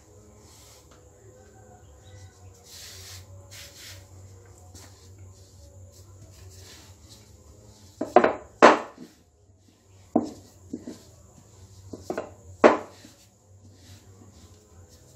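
Wooden rolling pin working dough on a granite countertop: faint rolling and rubbing at first, then from about halfway sharp knocks as the pin strikes the stone, coming in three pairs.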